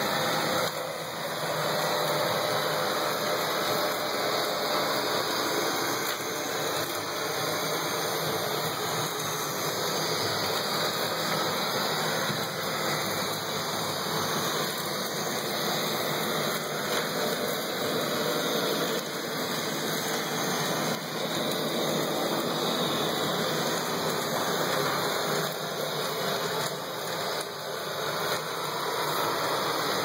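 Neato robot vacuum running, a steady whir of its suction fan and brushes.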